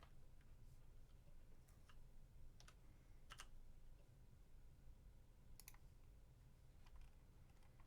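Faint, scattered clicks of a computer mouse and keyboard in use, about eight spread over several seconds, over a low steady hum.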